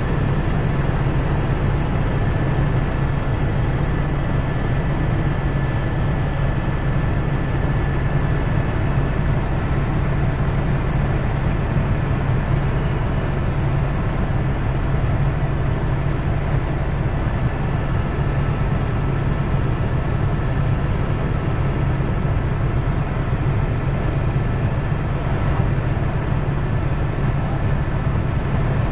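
Helicopter in flight heard from inside its cabin: steady, loud rotor and engine noise, heaviest at the low end, with faint steady high whines on top.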